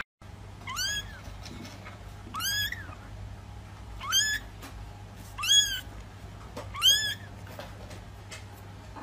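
A very young kitten meowing five times, high-pitched mews about a second and a half apart, each rising then falling in pitch.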